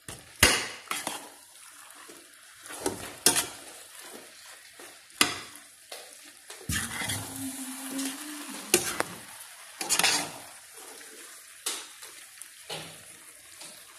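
A spoon stirring menudo in a stainless steel pan, clinking and scraping against the metal at irregular intervals, over the steady sizzle of the simmering stew.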